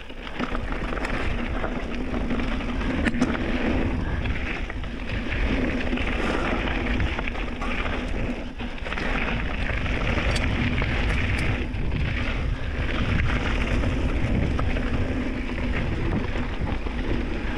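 Mountain bike descending a dry dirt and rock trail: a steady rush of tyre and wind noise with a low rumble on the chest-mounted microphone, and scattered sharp knocks from the bike over rocks and roots.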